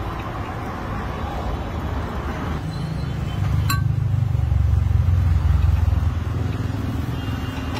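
Street traffic: a motor vehicle's engine rumble that swells about halfway through as it passes close by, with one sharp clink just before the peak.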